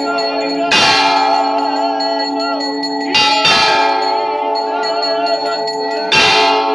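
Temple bells ringing steadily for the aarti, with three loud strikes about three seconds apart. Voices singing the aarti wind over the ringing.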